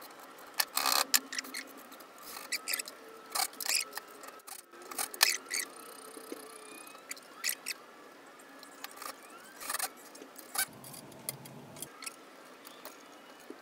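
Scattered sharp metallic clicks and knocks of hand tools and screws being handled while a stepper motor is bolted to the aluminium Z-axis plate of a homemade CNC router.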